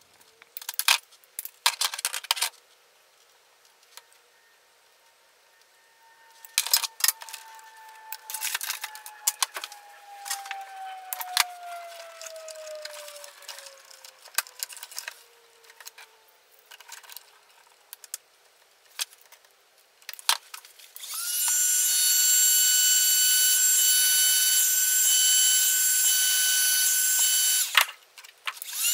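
Scattered clicks and snips of wire being cut and crimped. About 21 seconds in, a heat gun's fan starts with a steady high whine, the loudest sound here, runs for six or seven seconds, stops briefly and starts again near the end, shrinking heat-shrink tubing over the new connectors.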